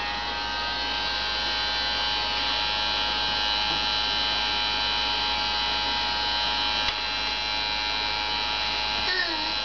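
Toy bubble machine's small fan motor running, a steady, even whirring hum.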